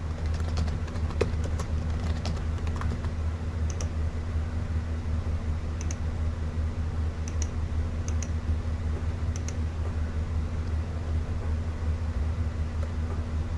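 Computer keyboard typing, a quick run of key clicks over the first few seconds, then a few scattered single clicks, over a steady low electrical hum.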